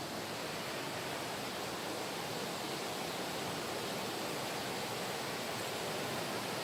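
Steady rush of flowing valley stream water, an even, unbroken noise.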